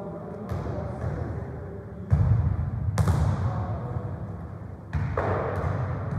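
A football being kicked and bouncing on a gym floor during a foot-tennis rally, each hit echoing in the hall. There are about four hits, the loudest two and three seconds in.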